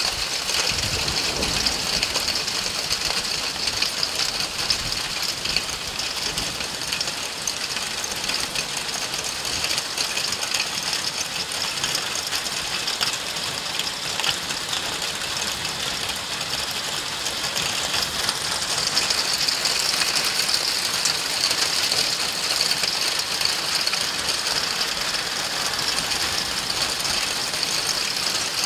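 Heavy rain mixed with hail falling on a street and trees: a dense, steady patter of countless small impacts, a little louder from about two-thirds of the way in.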